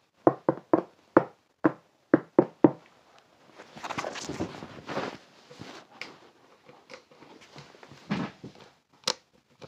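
A quick run of about ten sharp taps in the first three seconds, then rustling and scattered knocks, with a louder thump near the end, as a phone is handled and swung around.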